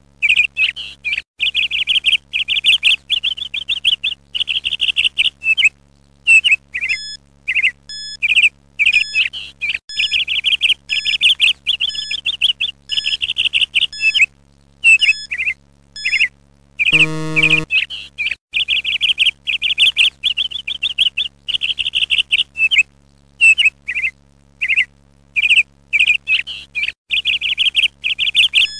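A songbird chirping and trilling in quick, repeated bursts, laid over a faint steady low hum. About seventeen seconds in, a short buzzer tone sounds once as the quiz countdown runs out.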